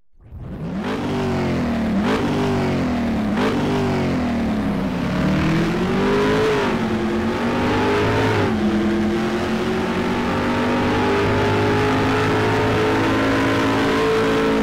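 Car engine revving hard, its pitch rising and falling sharply three times in the first few seconds, then climbing in longer pulls and holding a high steady pitch through the second half.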